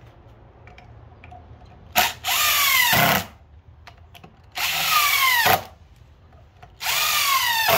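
Cordless drill driving wood screws into a solid-wood bench leg in three short runs of about a second each. The motor's whine drops in pitch through each run.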